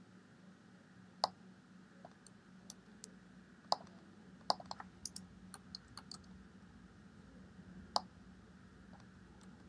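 Faint clicks of a computer mouse and keyboard: a few single clicks, with a quick run of clicks about five seconds in, over a low steady hum.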